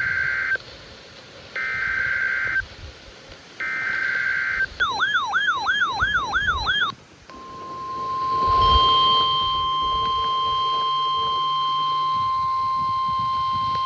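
NOAA Weather Radio emergency alert tones: short buzzy bursts of SAME header data about a second apart, then a warbling siren-like tone for about two seconds, then the steady 1050 Hz weather radio warning tone, held to the end and joined by a second, higher steady tone a couple of seconds after it starts.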